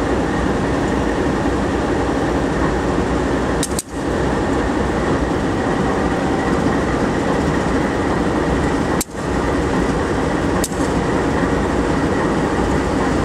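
Freight train rolling past: a steady, loud rumble of wheels and cars, broken by brief sudden dropouts about four and nine seconds in.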